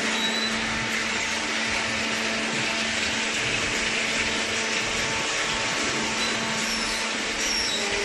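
Hydraulic baler's electric motor and pump running with a steady whirring drone and a constant low hum.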